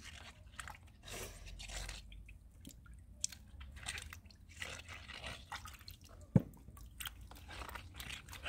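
Cucumbers being washed by hand in a plastic basin of water: small irregular splashes and drips, with cucumbers squeaking and rubbing against each other and the basin. One sharp knock about six seconds in.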